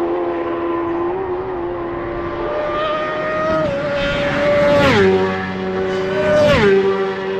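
Racing motorcycles going past at high speed, one after another: a held engine note rises and then drops sharply in pitch as each bike passes, about five seconds in and again about a second and a half later.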